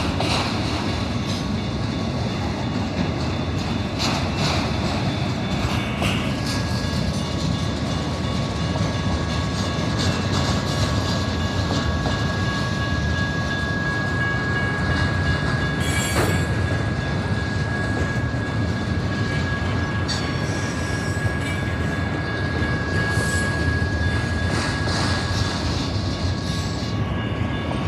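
Autorack freight cars rolling past: a steady rumble of wheels on rail with a few sharp knocks over joints, and a thin high squeal that swells in the middle.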